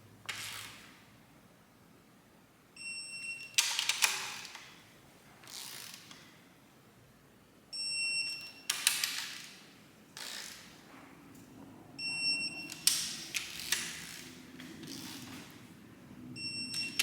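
Electronic torque wrench beeping on reaching the 66 ft-lb first torque step on Cummins 6BT cylinder head bolts. Four short high beeps come about four to five seconds apart, each followed by ratchet clicks as the wrench is worked onto the next bolt.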